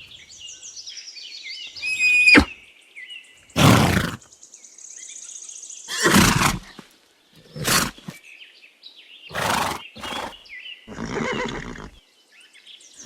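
A horse calling in a series of short, loud bursts spread through several seconds, with birds chirping faintly in the background.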